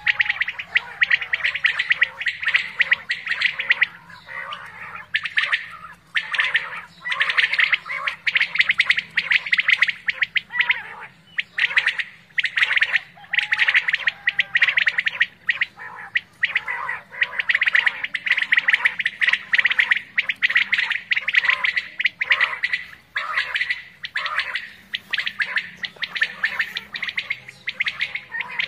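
Caged decoy quail calling together in dense, rapid bursts of about one to two seconds, with short gaps between them.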